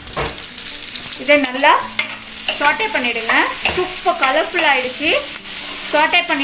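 Chicken sausage slices and cherry tomatoes sizzling in hot butter in a non-stick frying pan, stirred with a spatula that scrapes the pan in repeated squeaky strokes that swoop up and down in pitch. The sizzle grows louder about a second in.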